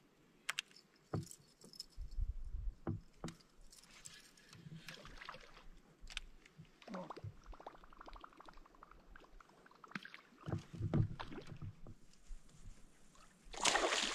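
Handling noises in a fishing kayak: scattered knocks and low thuds against the hull with light clinking of gear, and a louder burst of water or rustling noise near the end.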